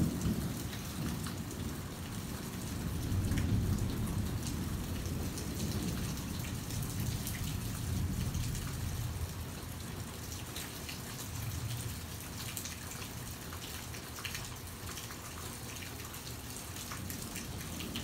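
Steady rain falling, with scattered sharp drop ticks, under a low rolling rumble of thunder that swells about three seconds in and dies away over the last few seconds.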